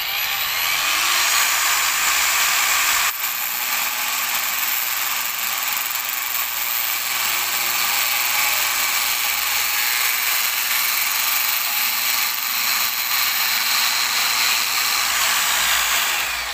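Angle grinder with a CD mounted as its cutting disc, running at full speed as it cuts through a PVC water pipe, a steady high-pitched noise that winds down right at the end. The cut goes cleanly, which the user calls very smooth.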